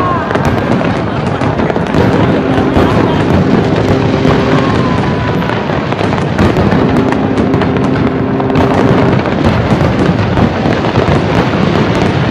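Aerial fireworks display: shells bursting overhead in a continuous barrage of bangs and crackling. A steady low tone sounds twice over it, each time for a couple of seconds.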